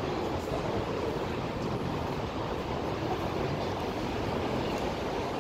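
Steady hum of city traffic, an even wash of engine and tyre noise with no single vehicle standing out.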